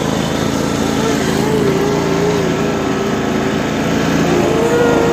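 Riding lawn mower's small engine running steadily as it drives through snow, with a wavering higher tone heard for a couple of seconds in the middle and briefly again near the end.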